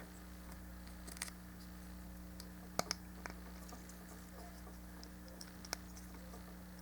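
Faint scattered clicks and taps of small plastic model-kit parts being handled and pressed together, a few spread over several seconds with a quick pair of clicks about three seconds in, over a steady low hum.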